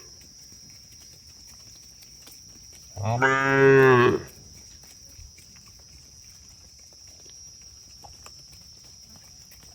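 A cow moos once, a single call of about a second a few seconds in. A faint steady high-pitched tone runs underneath.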